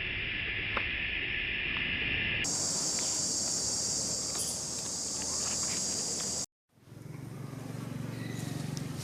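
Insect chorus: a steady, even high-pitched drone. About two and a half seconds in it switches abruptly to a much higher drone. Past the middle it cuts out for a moment, and a softer outdoor ambience with a few faint clicks takes over.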